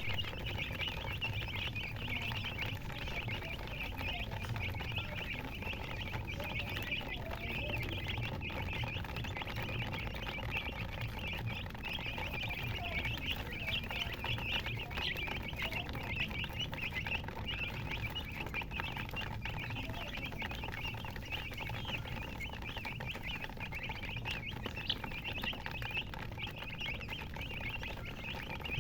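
A brood of baby chicks peeping nonstop, many high chirps overlapping into a continuous chorus, over a steady low hum.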